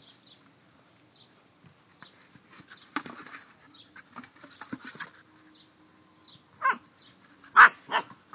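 Puppy nosing and shoving a plastic jack-o'-lantern bucket across grass, with light knocks and scrapes. Near the end come a few short, loud yips.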